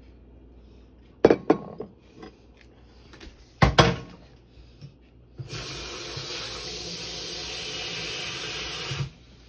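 Dishes clinking sharply against a glass bowl twice, then a steady rush of running water, like a kitchen tap, for about three and a half seconds that cuts off suddenly.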